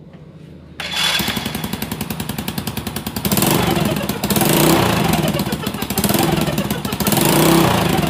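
Honda Supra motorcycle's four-stroke engine starts up about a second in and runs with a fast firing pulse that swells and sags every second or two, an uneven surging 'nguk-nguk' sound. This surging is the fault being shown, together with the bike's weak power.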